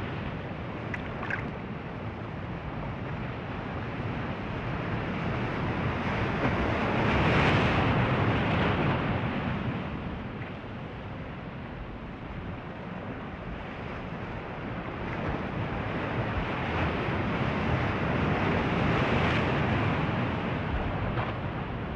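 Ocean surf: waves breaking and washing ashore in a continuous rush, swelling twice to a louder crash and ebbing in between.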